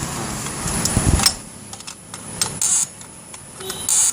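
Scattered sharp metallic clicks and taps from hand-tool work on a motorcycle wheel, with a dull thump about a second in and a few short hissing bursts later on.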